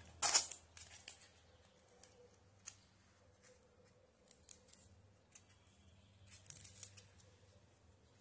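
Faint handling noises of a small styrofoam block with a monofilament fishing leader and hooks wound onto it: a short rustle at the start, then sparse small clicks and rustles, with a brief cluster near the end.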